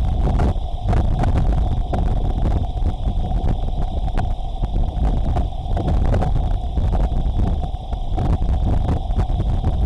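Gusty storm wind buffeting an outdoor webcam's microphone: a loud, steady low rumble with frequent crackles and a constant faint hum on top.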